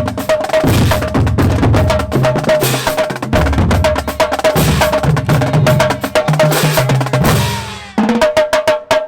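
Marching band drumline playing a fast, loud cadence of snare and bass drums, with the bass drum pitches shifting. The playing dies away briefly about eight seconds in, then starts again.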